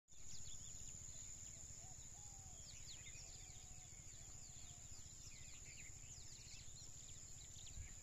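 Many small birds chirping and calling in short, quick notes over a steady high-pitched insect drone, with a faint low rumble underneath.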